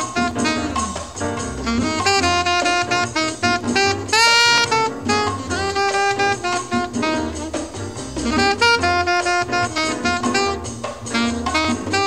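Jazz background music, a saxophone playing the melody over bass and drums, with one note bending upward about four seconds in.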